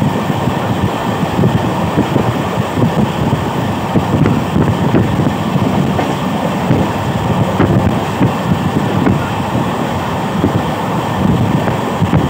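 Mumbai suburban local train, an electric multiple unit, running along the line, heard from inside the carriage: a loud, steady rumble of wheels on rail.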